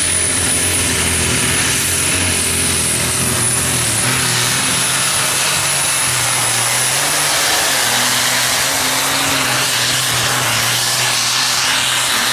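Competition pulling tractor running at full power during a pull: a loud, steady engine sound with a high whine that holds level and fades out about seven seconds in.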